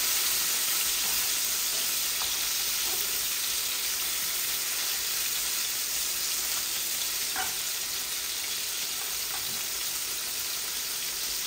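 Rohu fish steaks sizzling steadily as they shallow-fry in hot oil, with a spatula scraping the pan a couple of times as the pieces are moved.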